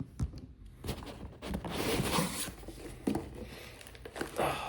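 A mailed package being torn open by hand: rustling and ripping of the packaging, with a few sharp knocks as it is handled.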